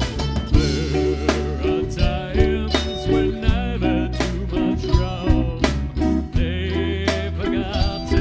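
A rock band playing, with drum kit, bass and guitar, keeping a steady beat of about two drum hits a second.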